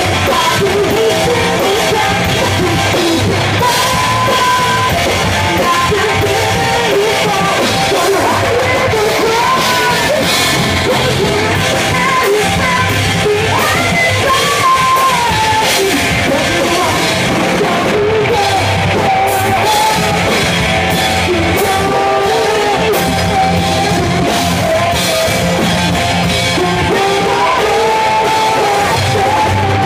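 Live hard rock band playing: a female lead vocal sings over loud guitars and drums, steady and dense throughout.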